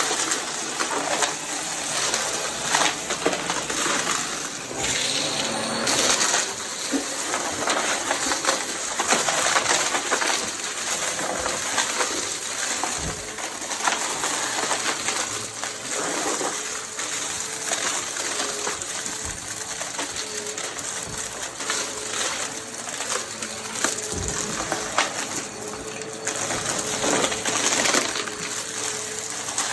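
Vacuum cleaner running while pushed quickly back and forth, a steady rushing noise with many crackles and clicks of debris rattling up into it.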